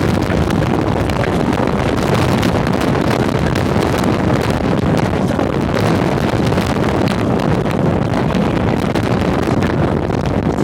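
Strong tornado winds buffeting the microphone: a loud, steady rush of noise, heaviest in the low end.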